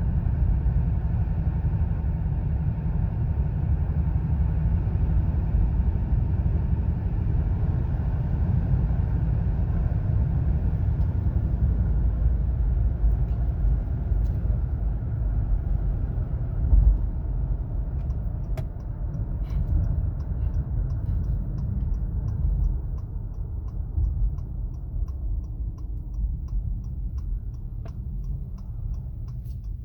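Road and tyre noise inside the cabin of a 2017 Acura MDX while driving, thinning out over the second half as the car slows. About two-thirds of the way in, a steady ticking begins, typical of a turn-signal indicator.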